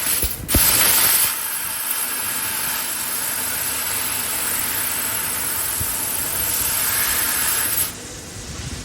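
Acctek 2 kW fiber laser cutting 5.8 mm stainless steel with compressed-air assist: a loud, steady hiss of air blasting through the cutting head. It breaks off briefly and comes back louder about half a second in, and stops about eight seconds in, leaving a lower background noise.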